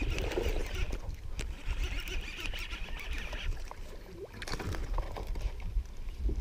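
Abu Garcia Black Max baitcasting reel being cranked fast with a steady whir while a hooked bass is reeled in; the cranking stops about three and a half seconds in. A few knocks and clicks follow as the fish is brought alongside the kayak, over a low rumble of wind and handling on the head-mounted camera.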